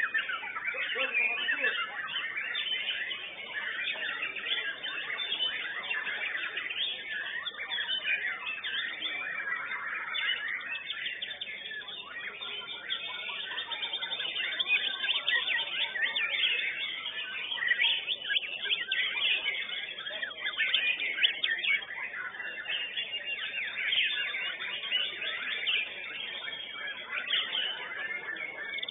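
White-rumped shama (murai batu) singing continuously in a contest cage, a fast, varied stream of whistles and chattering phrases without a break, heard thin through a CCTV camera microphone.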